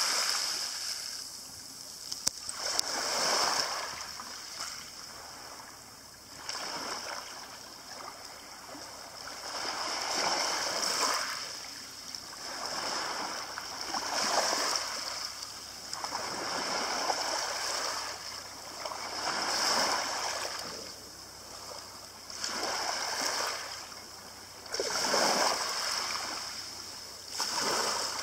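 Small waves washing up and draining back over a pebble beach, each wash swelling and fading about every three seconds.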